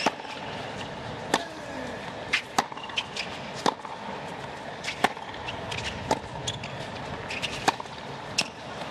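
Tennis rally on a hard court: sharp pops of racquet strikes on the ball, roughly one a second, with fainter bounces of the ball in between, over a low steady crowd hum.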